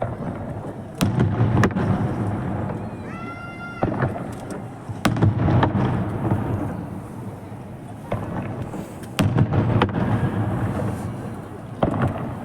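Aerial fireworks shells bursting: sharp bangs, each followed by a low rolling boom. The bangs come about a second in, again near two seconds, around five seconds, twice around nine to ten seconds, and once near the end.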